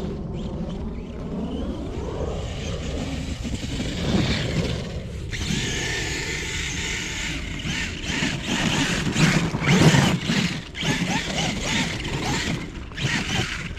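Kyosho Foxx VE RC truck's brushless electric motor whining, its pitch falling and rising with the throttle, as the paddle tires churn through snow. The run grows louder and noisier in the second half.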